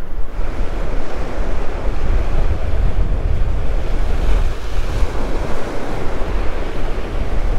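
Surf washing against a rock jetty, a steady rushing of waves, with wind buffeting the microphone in a heavy low rumble.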